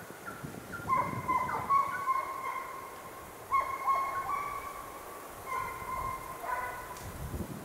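Russian hounds giving tongue on a hare's trail: long drawn-out cries in several overlapping voices, coming in three spells about a second, three and a half seconds and five and a half seconds in. These are short bursts of chase, typical of hounds that keep losing a poorly scented hare.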